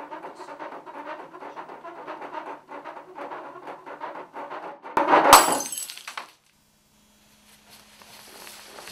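A busy, uneven run of indistinct sounds, then a sudden loud crash about five seconds in that rings on for about a second before cutting off. A short silence and a faint low hum follow.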